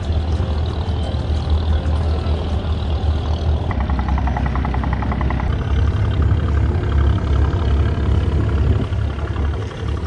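Diesel engine of an abra, a wooden Dubai Creek water taxi, running steadily under way with a deep, loud rumble, with water and wind noise over it.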